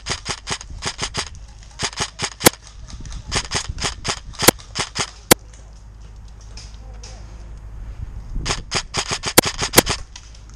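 VFC Avalon Calibur airsoft electric rifle firing rapid semi-automatic shots, about five or six a second, in several strings with a pause of about three seconds in the middle; a few sharper, louder cracks stand out. Wind rumbles on the microphone.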